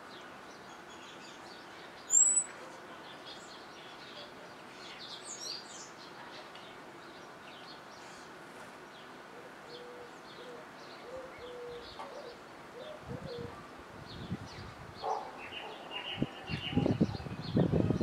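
Wild birds chirping faintly, with one loud, short, falling high whistle about two seconds in. Near the end comes a quick, irregular run of knocks and taps as a common blackbird pecks at an opened walnut shell on the soil.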